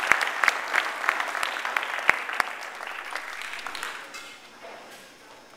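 Audience applauding, the clapping thinning out and dying away about four seconds in.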